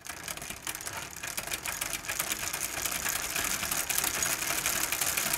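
Rapid, dense crackling clicks that swell slowly in loudness, a sound effect laid under an animated title sequence.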